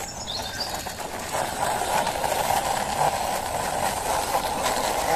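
Plastic wheels of a toy motorcycle rolling on a painted concrete ledge as a hand pushes it, a steady rough rolling noise that grows a little louder about a second and a half in.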